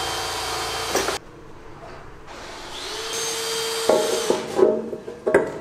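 A workshop machine hums steadily and cuts off about a second in. From about four seconds in come several metal clunks and scrapes as a long metal valve cover is set onto the cylinder head of a V12 tank engine. The cover does not seat because of an extra stud on the head.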